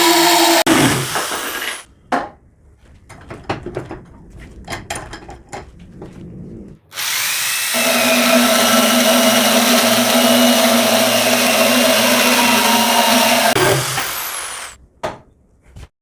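Electric drill running, stopping about two seconds in, then a few seconds of light knocks and handling clicks. The drill starts again, runs steadily for about six seconds and winds down, with a couple of clicks near the end.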